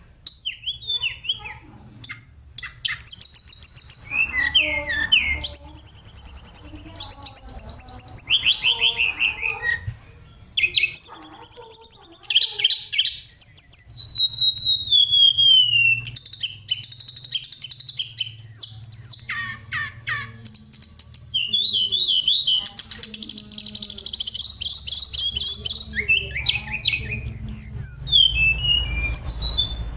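Oriental magpie-robin (kacer) singing a rapid, varied song of clear whistles, trills and fast runs of repeated notes. One phrase glides down about a third of the way in, and there is a short break.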